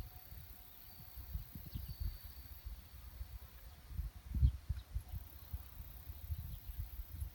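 Irregular low rumbling gusts of wind buffeting the microphone, with a faint high chirping behind; no train is heard.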